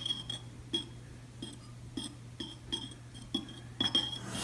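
A spoon clinking against the side of a bowl while stirring glue, water and food colouring: short ringing taps, about two to three a second.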